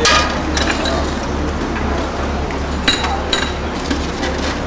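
Metal ladle clinking against the rim and sides of a steel stockpot while soup is ladled out. There are a few sharp clinks: one, another about half a second later, and two ringing ones close together about three seconds in.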